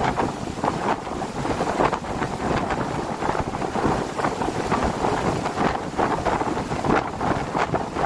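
Wind blowing across the microphone: a steady noise that swells and dips in gusts.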